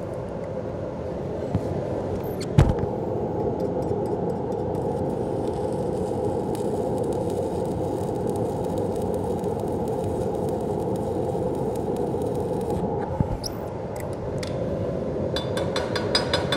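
Stick arc welding on cast iron with a 1/8-inch nickel electrode: the arc strikes about two and a half seconds in and crackles for about ten seconds before breaking off. Near the end, a chipping hammer strikes the bead rapidly with a ringing, metallic sound, knocking off slag and peening the weld to relieve stress. A fume extractor runs steadily throughout.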